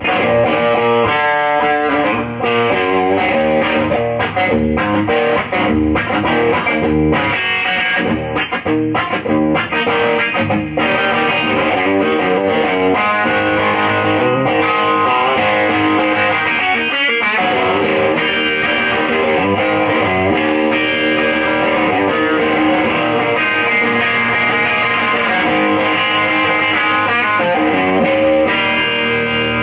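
Electric guitar, a 50s Les Paul through an Audile TOAD overdrive pedal on its twang setting into a Fender Deluxe amp, playing a continuous run of picked notes and chords.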